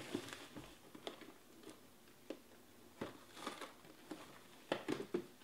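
Trading cards and pack wrappers being handled: scattered light taps, clicks and rustles, with a quick run of sharper clicks near the end.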